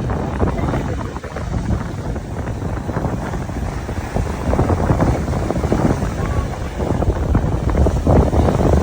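Strong wind buffeting the microphone: a gusty low rumble that rises and falls throughout.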